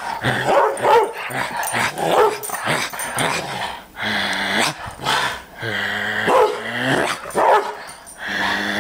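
Airedale terrier play-growling and barking while roughhousing, rough growls first and then several short pitched barks.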